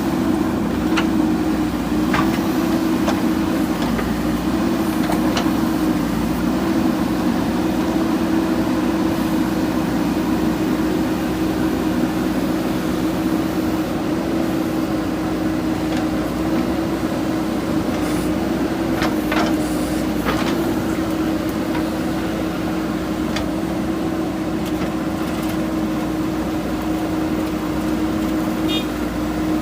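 Machine running with a steady, unchanging hum, broken by a few short sharp clicks or knocks.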